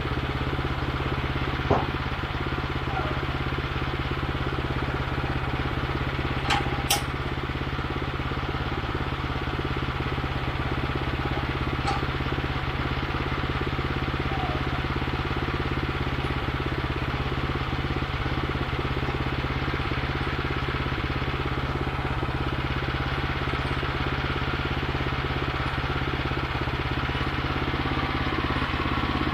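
Woodland Mills bandsaw mill's gasoline engine running steadily, with a few short sharp clicks or knocks in the first dozen seconds.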